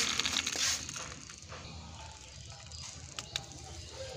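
Small plastic toy motorbike rolled by hand over rough concrete, its wheels and gearing giving a dense clicking grind that dies away about a second in. Two small clicks follow near the end.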